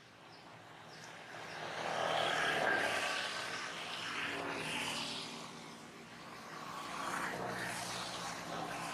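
A distant engine's drone that swells, eases off and swells again.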